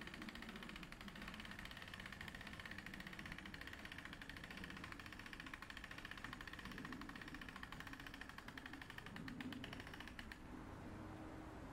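Hand-cranked mast winch ratcheting in a fast, even run of clicks as the telescoping antenna mast is cranked up on its steel cable. The clicking stops about ten seconds in. Wind rumbles on the microphone.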